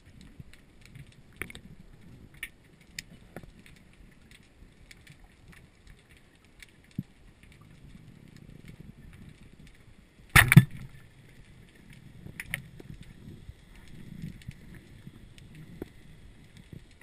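Underwater sound picked up through a GoPro's sealed housing: a low muffled water rumble with faint scattered clicks, and one loud knock, doubled, about ten seconds in.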